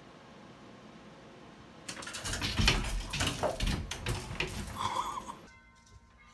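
A cat leaping up into a clothes closet and scrambling among the hanging clothes: a run of thumps and clattering starting about two seconds in, which cuts off suddenly.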